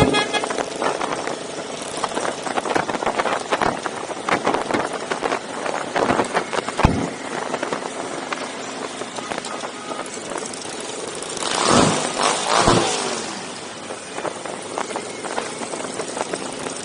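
Motorcycle engines running in a large group ride, with two louder swells about twelve seconds in.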